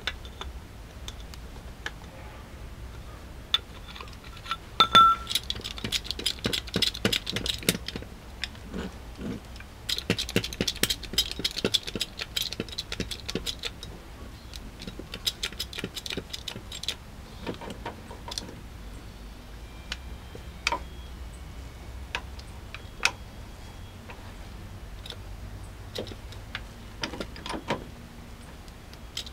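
Metal clicking and rattling from an Emerson hydraulic bottle jack being handled: its release valve is turned shut and its saddle is raised by hand up to the car's jacking point. The clicks come in two dense runs of several seconds each, then as scattered single ticks.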